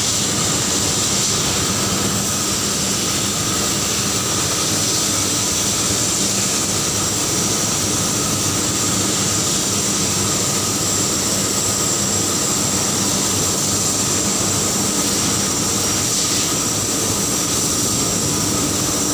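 Ferronickel smelting furnace plant noise: a loud, steady industrial roar with a low hum and a high whine running through it, unchanging throughout.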